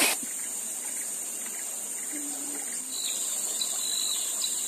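Steady flowing river water with a constant high insect drone, and a few short high insect chirps from about three seconds in.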